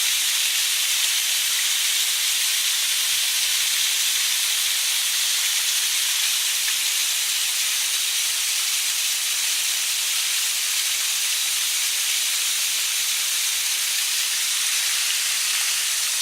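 Steady hiss of falling water, heavy rain and a rain-swollen waterfall, even and unbroken throughout.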